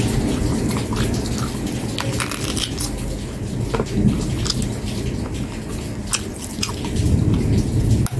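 Close-miked chewing of a mouthful of food, with wet mouth clicks and smacks scattered over a low rumble.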